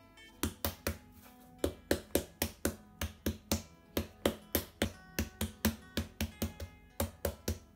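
A palm repeatedly slapping and patting soft bread dough flat on a wooden cutting board: a quick run of sharp slaps, about three or four a second, starting about half a second in and stopping near the end. Soft guitar music plays underneath.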